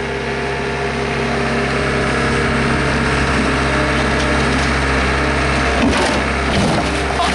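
A loader's engine running steadily under load while it holds the rear of a pickup truck up in the air. About six seconds in comes a short burst of creaking and knocking.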